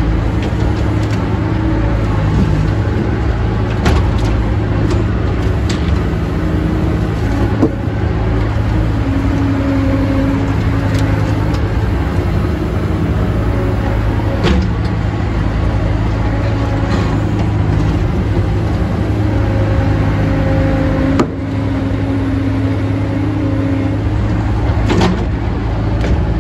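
Halverson HWP120 firewood processor running steadily with a loud low hum. A higher tone comes and goes as the load changes, and there are a few sharp knocks, one about four seconds in and others further on.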